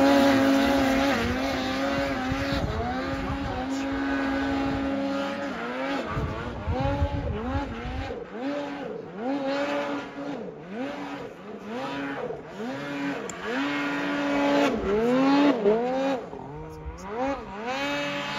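Two-stroke snowmobile engine running at high revs, its pitch steady at first, then rising and falling about once a second as the throttle is worked on and off, and settling steady again near the end.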